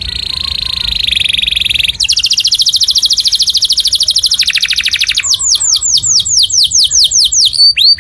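A canary singing a song in tours. It starts with a fast trill, switches to an even quicker rattling trill about two seconds in, and from about five seconds in runs into a series of falling whistled notes, about five a second.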